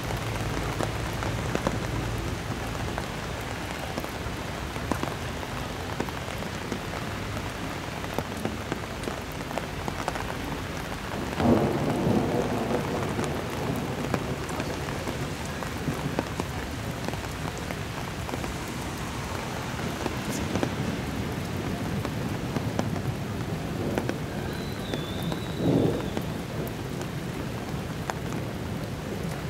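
Steady rain in a thunderstorm, with two louder claps of thunder, the loudest a little before halfway and another near the end.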